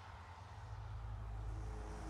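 Steady rain ambience: an even hiss of rainfall, with a deep low rumble that swells from about half a second in.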